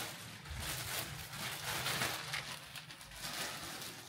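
Rustling and crinkling of packaging being handled, an irregular noise broken by small scrapes and clicks.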